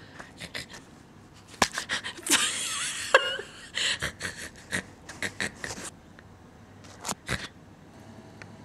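Rustling and crinkling of a fabric cat tunnel in bursts as a cat rolls and bats about inside it, with scattered taps and knocks; a short squeak about three seconds in.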